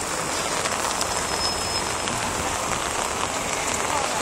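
Heavy downpour mixed with hail: a steady hiss of rain pattering on the plastic tarps of tents.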